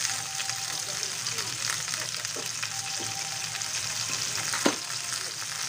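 Chicken feet sizzling in a stainless steel pot on the stove: a steady hiss with many small crackles. One sharp knock about four and a half seconds in.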